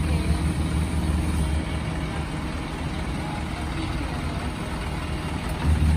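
Isuzu NQR dump truck's diesel engine idling steadily. Its low hum eases a little about two seconds in and picks up again near the end.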